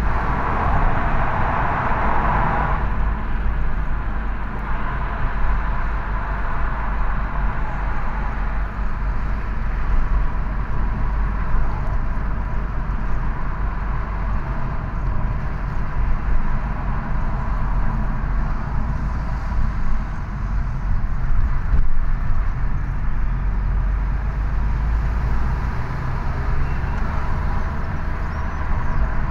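Road noise inside a moving car's cabin: a steady low rumble of engine and tyres with a hiss of tyres on the road, louder for the first two or three seconds while passing under a brick railway arch.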